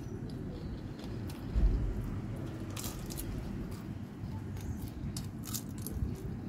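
Close-up chewing and crunching of crispy fried shrimp, with scattered sharp crunches over a low mouth rumble. A single low thump about a second and a half in.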